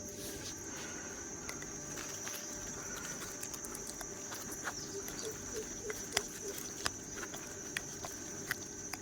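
A steady, high insect chorus of crickets or cicadas, with scattered sharp clicks and ticks throughout, a few louder ones in the second half.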